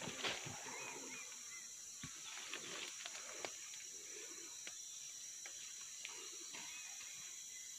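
Faint outdoor ambience with a steady high-pitched drone, and light scattered ticks and rustles as a gloved hand brushes over the freshly sawn wood of a large tree.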